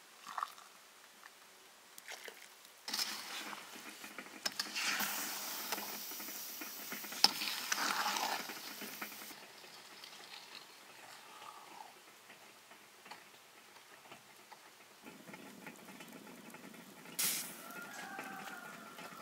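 Water poured into a stainless steel bowl, then a metal spoon stirring the liquid in it with scattered clinks against the bowl.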